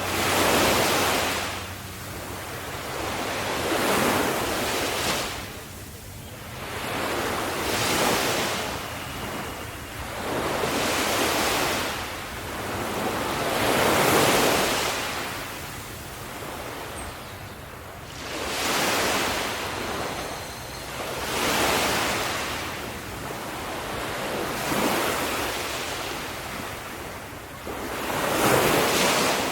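Sea waves breaking on a shore, each surge swelling and washing out in turn, about one every three to four seconds.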